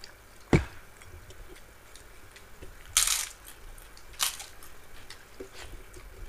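A sharp knock as a steel drinking tumbler is set down on the table. Then come two crisp crunches, about three and four seconds in, as a papad is bitten.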